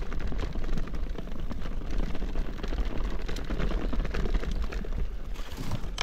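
Wind buffeting a moving camera's microphone as a deep, continuous rumble, with irregular clicks and rattles of movement over a stony trail.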